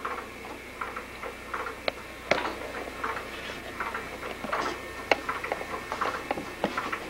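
Baby swing ticking, about three short ticks a second.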